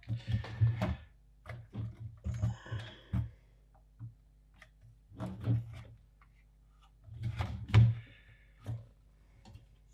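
Handling noise from the open chassis of an SM Pro Audio M-Patch 4M monitor controller being lifted, turned and set down on a bench mat: irregular knocks, clicks and light thuds, with the loudest knock a little after two-thirds through.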